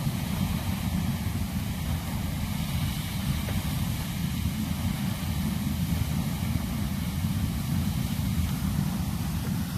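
Soda Springs' captive, carbon-dioxide-driven geyser in full eruption: its water jet rushing out of the vent with a steady, unbroken roar that is heavy in low rumble.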